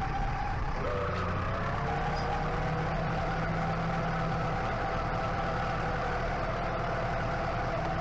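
Compact tractor engine running, heard from the driver's seat; its pitch rises about a second in, then holds steady as the tractor drives on.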